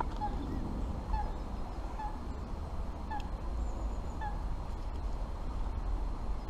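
A bird calling, short calls repeated about once a second, over a steady low rumble.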